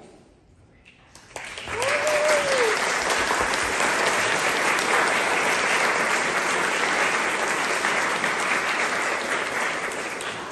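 Congregation applauding in a church, starting about a second in and holding steady. A single voice gives a short whoop just after the clapping starts.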